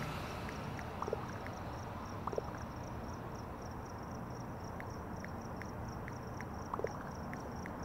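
Crickets chirping in a steady, rapid rhythm, several chirps a second, over a faint background hiss. A few brief, fainter chirps at a lower pitch come now and then.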